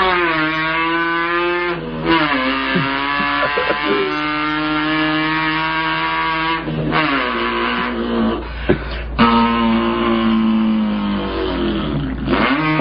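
A man imitating a revving import car engine with his voice: long buzzing held tones that climb, then drop sharply three times like gear shifts.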